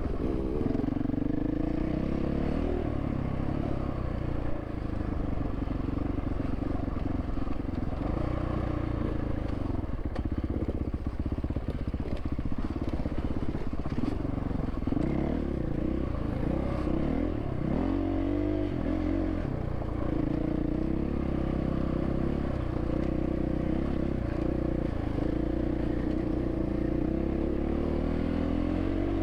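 Dirt bike engine running as the bike picks its way over rough single track, the revs rising and falling with the throttle again and again.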